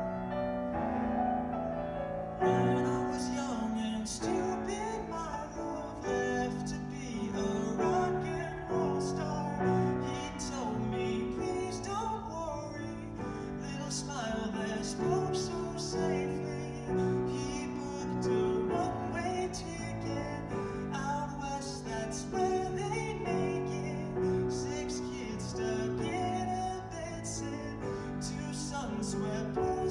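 A live pop song cover: piano chords, joined about two and a half seconds in by a solo voice singing over them.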